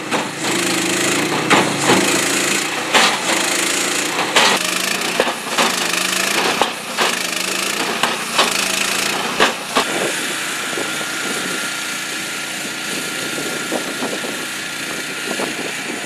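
Portable three-wheel concrete breaker at work: its engine runs steadily while its hammer strikes the concrete with sharp blows, roughly one a second, thinning out over the last several seconds.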